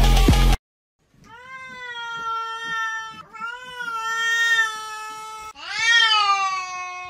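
A domestic cat yowling at another cat in a stand-off, a threat call in three long drawn-out wails, the last one rising and then falling. A snatch of electronic music cuts off just before the first wail.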